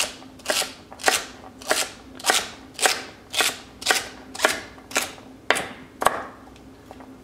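Chef's knife dicing celery on a wooden cutting board: about a dozen even chops, roughly two a second, each a sharp knock of the blade through the stalk onto the board, stopping about six seconds in.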